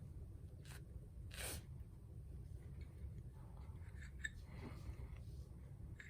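Faint handling of a Zippo lighter insert while cotton wadding is packed into it: soft rustling, a brief brushing swish about a second and a half in, and a few light clicks.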